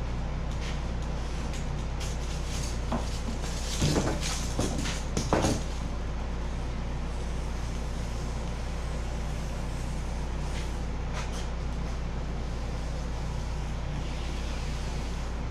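Caulking gun being handled and squeezed to lay beads of construction adhesive on foam strips: a cluster of knocks and clicks about four to five and a half seconds in, and a few fainter clicks near eleven seconds, over a steady low hum.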